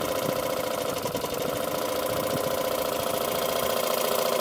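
The Stuart steam engine of a model steam boat running on test out of the water: a steady, fast, even mechanical beat with a hiss of steam over it.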